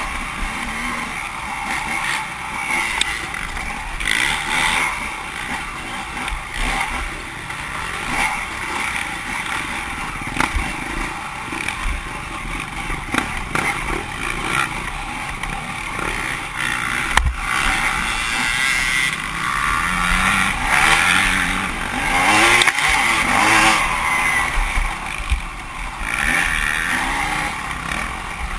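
Dirt bike engine revving up and down as it is ridden over rough off-road terrain, with occasional knocks.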